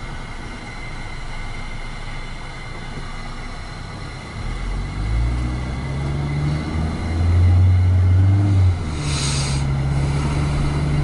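Car engine and road noise heard from inside the cabin: low and steady while the car creeps along, then louder with the engine note rising as the car picks up speed about halfway through. A brief hiss comes near the end.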